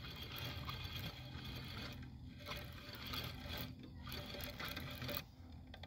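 A small boat motor running steadily, a low buzzing hum under a hiss; about five seconds in the hiss drops away and the hum carries on fainter.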